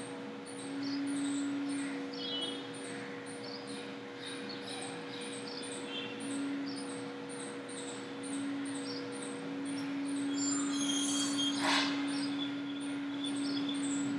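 A steady low hum with faint short high chirps repeating about twice a second. A bit over ten seconds in comes a brief burst of noise, ending in a click.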